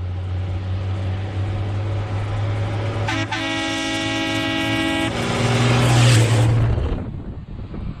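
Diesel dump truck approaching and driving past, its engine growing louder, with its horn sounding once for about two seconds midway. It is loudest as it passes close by about six seconds in, then falls away.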